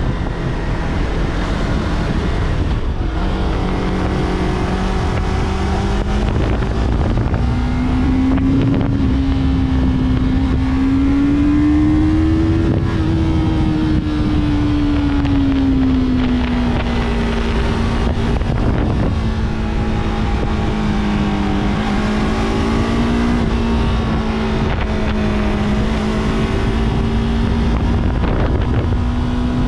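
Yamaha R3's parallel-twin engine running steadily at moderate revs under a rider, its pitch climbing slowly to a peak about halfway through and then easing back down, with wind rushing over the microphone.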